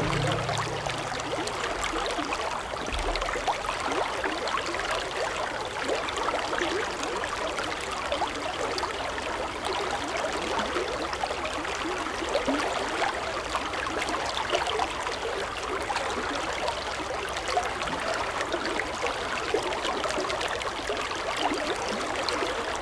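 Small brook flowing over rocks: a steady babble and splash of running water.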